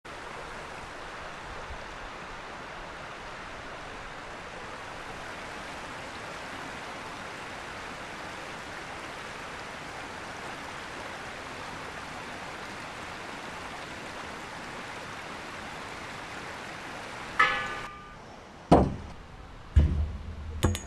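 Steady rush of river water over falls. Near the end a brief ringing tone, then a fist knocks a few times on the lid of a metal slatted trash can: sharp, loud hits with a low thud.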